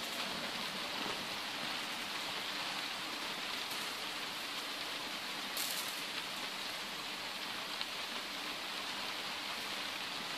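Steady hiss of rain falling, mixed with a paper-and-cardboard fire burning in a kettle barbecue, with a few faint crackles.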